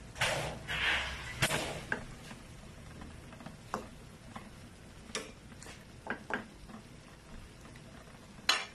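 Metal spatula scraping and clinking against an aluminium frying pan while stirring simmering beef: two longer scrapes in the first two seconds, then scattered light clicks.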